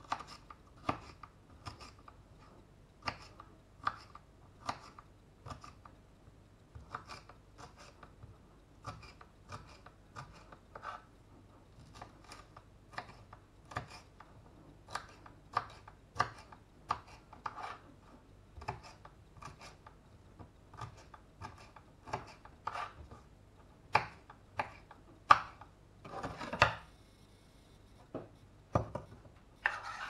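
Kitchen knife chopping a green bell pepper on a wooden cutting board: crisp, irregular cuts, about one or two a second, with a longer scrape across the board near the end.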